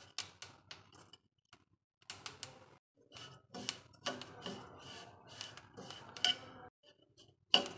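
Metal spatula scraping and clicking against a stainless steel kadhai as it stirs sesame seeds roasting over low heat. The clicks and scrapes are irregular, sparse at first and more continuous from about two seconds in.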